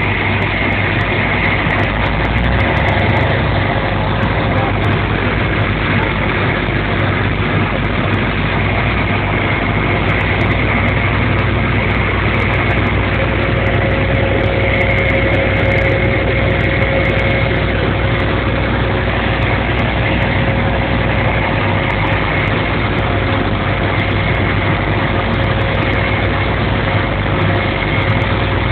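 Airplane engines running with a steady drone, a faint steady whine over the rumble.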